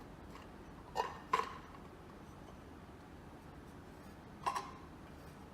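A few light clinks as the threaded mounting flange is knocked against the base of a Rhino Pro gumball machine while its holes are lined up: two about a second in, one more near the end.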